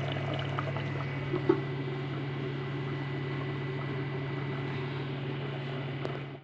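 Steady low machine hum over a pot of meat sauce simmering on a gas stove, with a light click about a second and a half in.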